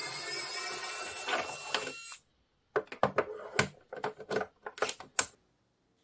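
Small electric precision screwdriver whirring, its pitch wavering under load as it backs out a screw in a plastic housing, stopping about two seconds in. Then a run of light clicks and taps against the plastic.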